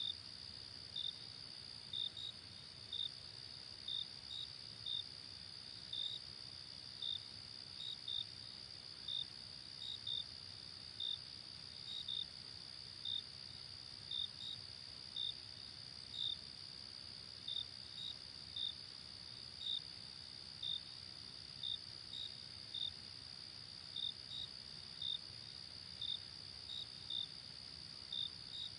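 Night insect chorus: a steady high-pitched trill with short cricket chirps about once a second over it, against a faint low background hum.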